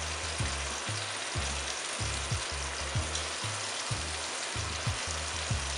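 Marinated curry goat meat sizzling as it goes into hot oil in a pot, a steady frying hiss. Background music with a low beat about twice a second plays underneath.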